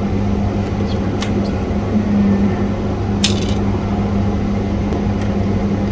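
Steady low electrical hum with a few light clicks and taps, the sharpest about three seconds in.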